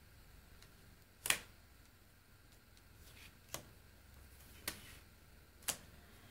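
Tarot cards being laid down one at a time on a table: four short taps as each card lands, the first on its own and the last three about a second apart, with a faint slide of card before the second.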